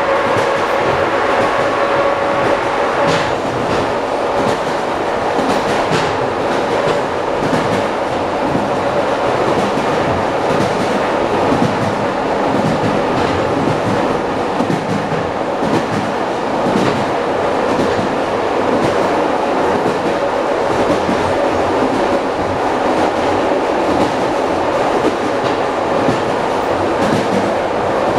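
ED9M electric multiple unit running along the line, heard inside a car's vestibule: a steady rumble with the clatter of wheels knocking over rail joints. A steady whine fades out in the first few seconds.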